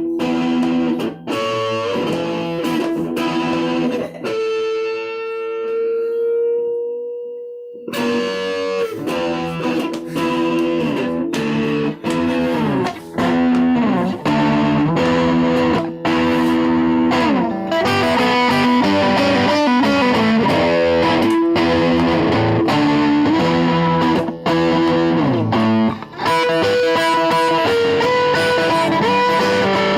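Rock music with distorted electric guitars, bass and drums. About four seconds in the band drops out, leaving one held guitar note that fades away, and the full band comes back in at about eight seconds.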